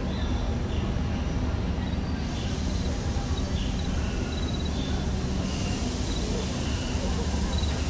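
Theme-park jungle soundscape from the area speakers: short chirps and little trills of insects or small animals over a steady low background rumble. A high hiss brightens about two seconds in and again more strongly a little past halfway.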